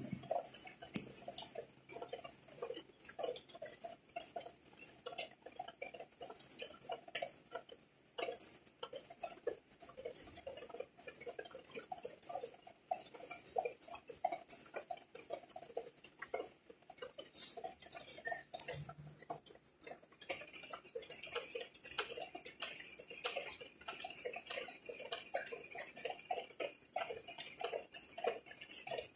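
Raindrops and drips tapping in a quick, irregular ticking, with a brighter, higher-pitched ticking joining about two-thirds of the way through.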